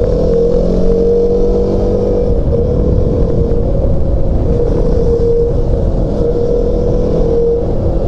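KTM 200 Duke's single-cylinder four-stroke engine running at a steady cruise, heard from the rider's helmet, with wind rumble over the microphone.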